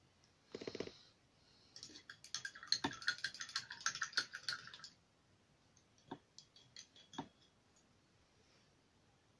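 Quick, uneven clicking and rattling of small hard objects being handled, in a dense flurry lasting about three seconds, followed by a few separate sharp taps.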